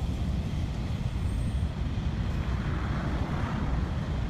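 Long freight train of loaded open wagons running along the track, a steady low rumble.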